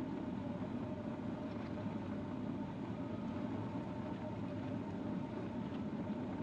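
Cat D6K2 LGP bulldozer running steadily: a continuous diesel drone with a faint steady whine over it.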